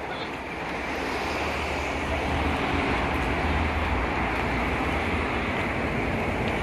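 Steady outdoor rush of road traffic with wind buffeting the microphone, a low rumble that grows a little about a second in.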